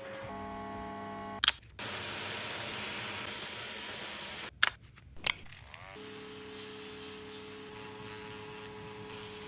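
Small electric pet-grooming tool's motor humming steadily, broken by a few sharp clicks about a second and a half in and again around five seconds, then humming again.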